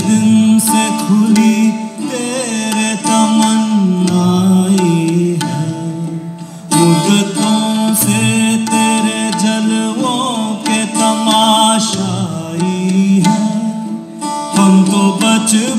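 Live Hindustani-style song: a male vocalist sings long, wavering held notes, accompanied by tabla and a plucked long-necked string instrument, with short breaks between phrases.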